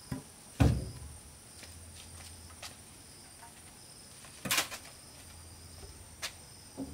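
Wooden planks knocking against each other and against a plank wall as they are handled and stood upright: a heavy thud about half a second in, a sharp wooden clack a little after four seconds, and a lighter knock near the end. A steady high insect whine runs underneath.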